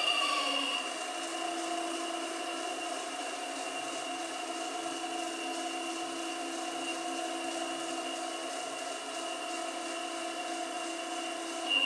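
Hydraulic pump of a 1:8 scale RC Caterpillar 390D model excavator running with a steady whine, easing slightly in the first second.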